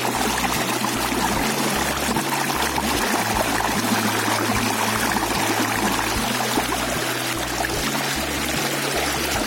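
Water splashing and sloshing as a hand swishes an action camera in its clear waterproof case through shallow water, a steady rushing noise.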